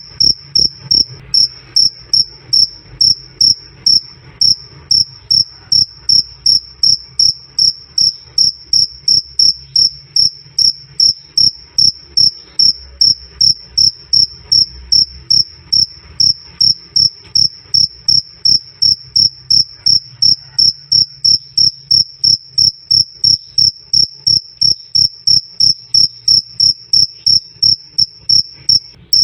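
Male cricket chirping loudly and steadily in a high, clear, evenly spaced train of about three chirps a second, over a faint low hum.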